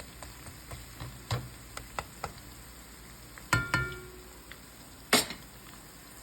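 Onions, garlic and ginger frying in oil in a wok with a low sizzle, while a utensil knocks and scrapes against the wok: a loud ringing clank about three and a half seconds in and another sharp knock about five seconds in.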